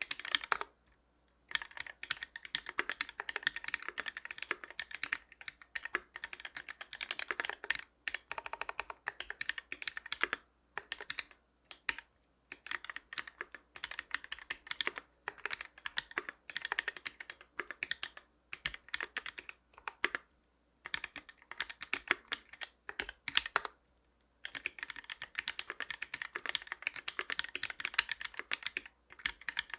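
Custom mechanical keyboard with a brass plate, lubed Gateron Milky White linear switches on 57 g springs and GMK Camping keycaps, typed on in fast, continuous runs of keystrokes. The runs break off for a few brief pauses.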